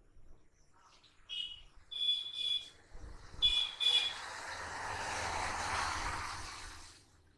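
Street traffic: a few short, high-pitched beeps, then a vehicle passing by, its noise swelling and fading over about three seconds.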